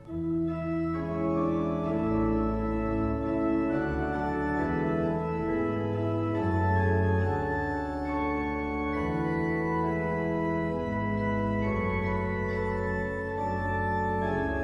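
Organ playing a hymn in slow, held chords, starting afresh right at the beginning after a brief dip in the music.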